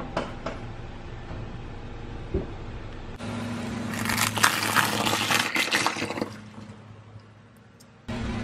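A car creeps forward with a steady low hum, and loud crackling and crunching come from under its tyre for about two seconds, then die away. Before that there are a few light clicks and a soft thump.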